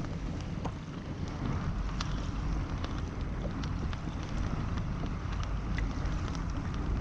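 Wind buffeting the microphone on open sea, a steady rumbling noise, with scattered faint ticks and small splashes of water against the kayak.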